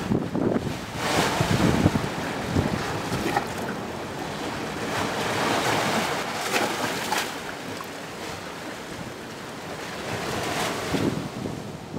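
Ocean surf breaking on coastal rocks and washing through a rocky gap, a steady hiss of white water that swells louder with each wave, three times over.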